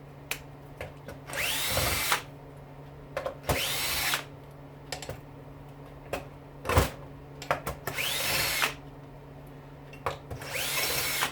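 Cordless drill-driver run in four short bursts, each spinning up and winding back down, backing screws out of a dishwasher pump motor's top housing. Sharp clicks and light clatter of parts come between the runs.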